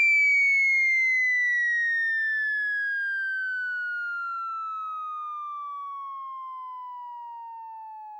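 Cartoon sound effect: a single whistle-like tone gliding slowly and steadily down in pitch while it fades away.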